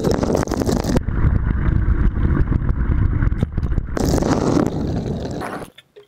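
Running tap water pouring and splashing right onto the camera, muffled for a few seconds in the middle while the lens is under water, then cutting off suddenly near the end.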